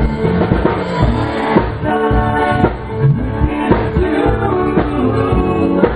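Live rock jam: several guitars playing chords over a drum kit that keeps a steady beat.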